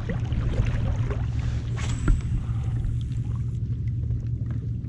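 Water lapping and splashing against the hull of a plastic Hobie Pro Angler 14 fishing kayak over a steady low rumble, with one sharper click about two seconds in.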